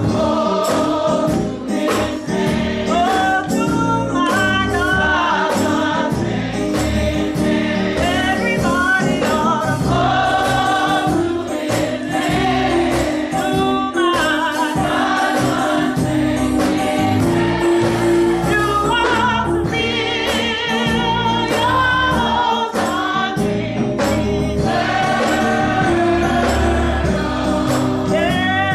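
Youth gospel choir singing together, backed by drums keeping a steady beat.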